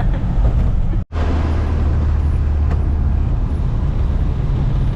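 A 1970 VW Bus's air-cooled flat-four engine running steadily under road noise while driving, heard from inside the cabin. The sound cuts out for an instant about a second in.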